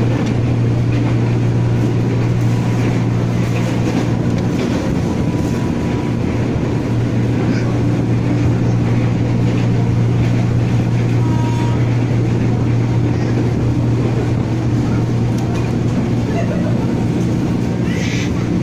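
Steady running noise heard inside a moving ex-JR 205 series electric commuter train, a constant low hum over an even rumble, with a brief hiss near the end.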